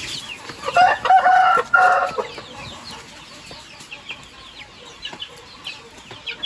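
Backyard chickens: a rooster crows once, a loud call about a second in lasting roughly a second and a half, while many short, high, falling peeps carry on through the flock.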